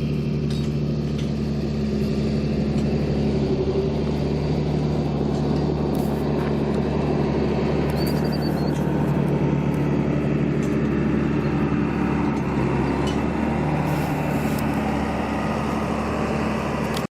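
A vehicle running steadily: a low, even hum with rushing noise over it.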